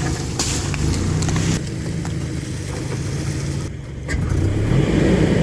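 An engine running steadily at low revs, its note shifting slightly a couple of times.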